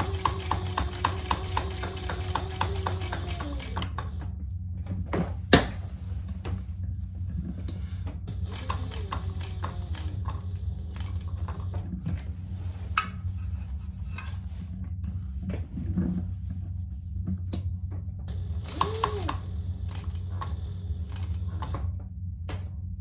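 Sewing machine stitching a small box through thick quilted layers in three short runs: rapid needle strokes with a motor whine that winds down each time the machine stops for the fabric to be turned. A sharp click comes between the first two runs, and a steady low hum lies underneath.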